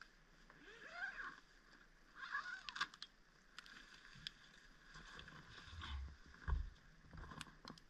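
Faint rustling of tent fabric as a person crawls out through the door of a hot tent, with scattered small clicks, then a few dull thumps of boots stepping onto snow a little after six seconds in.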